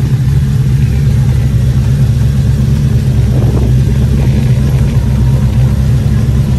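Truck engine running steadily with a deep rumble.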